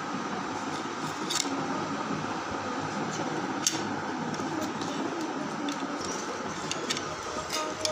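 A steady mechanical hum, such as a fan, with a few sharp clicks and taps from tableware and snack packets being handled. The loudest click comes a little under four seconds in, and a small cluster comes near the end.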